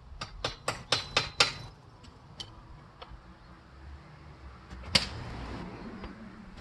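A quick run of six sharp knocks in about a second and a half. A single louder knock comes about five seconds in, followed by a steady rushing noise.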